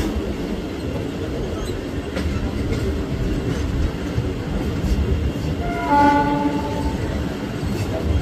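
Mumbai suburban electric local train running on the track, heard from an open coach doorway: steady wheel and coach noise with a few faint clicks. A horn sounds for about a second, about six seconds in.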